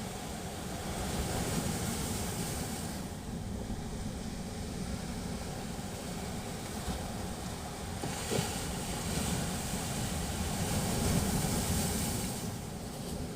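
Sea waves breaking and washing up the shore, the surf swelling twice in a steady low rumble and hiss.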